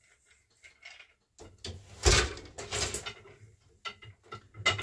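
Wooden 8-shaft loom being worked by hand: a run of knocks and scraping with one heavy knock about two seconds in, then a few short sharp clicks near the end.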